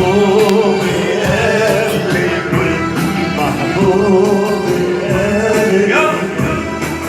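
Arabic song music: a wavering, ornamented melody over sustained low notes and percussion.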